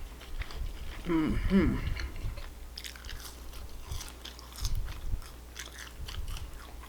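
A person chewing a mouthful of food, with small wet clicks and crunches from the mouth. A short wordless vocal sound comes about a second in.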